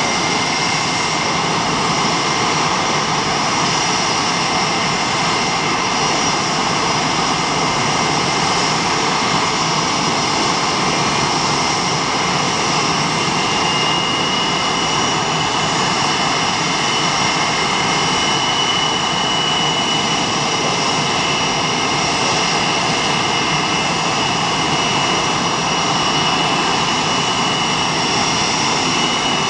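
Several F/A-18 Hornet jets' twin turbofan engines running at idle on the ramp after start-up: a steady, loud jet whine with several high tones, and one more high tone joins about halfway through.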